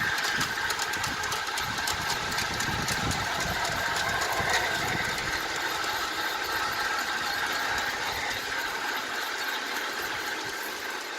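Bachmann Thomas and Percy model locomotives running, their DCC sound decoders playing steam-engine running sounds through small speakers, with a light rattle of wheels on the track. The low rumble fades about halfway through.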